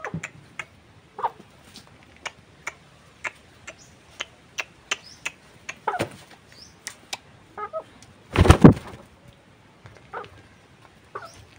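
White broiler chickens clucking briefly a few times over many scattered sharp ticks, with one loud burst of noise about eight and a half seconds in.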